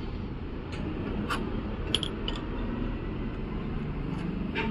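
Several light metallic clicks and clinks of hand tools and bolts, as the motorcycle's front brake caliper mounting bolts are taken out, over a steady low background rumble.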